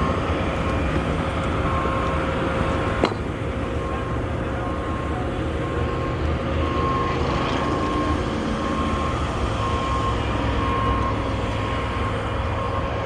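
Skid steer engine running steadily under load, with a faint beep repeating about once a second and a single sharp click about three seconds in.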